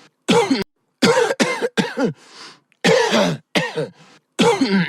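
A person giving a run of about eight short, deliberate voiced coughs in quick groups, each with a falling pitch and silent gaps between them: the coughing done for the cough challenge.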